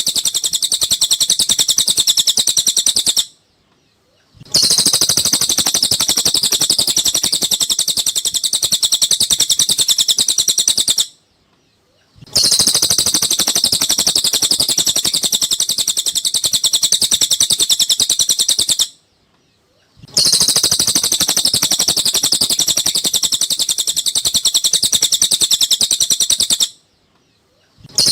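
Recorded song of a cililin bird, played as masteran for training songbirds: rapid, unbroken high-pitched chirping in bouts of about seven seconds, each followed by about a second of silence, repeating evenly as a loop.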